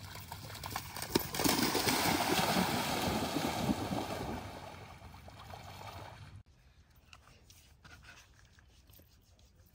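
Dogs splashing as they run through shallow lake water, loudest from about one to four seconds in, then fading; the sound drops off suddenly a little past halfway, leaving only faint ticks.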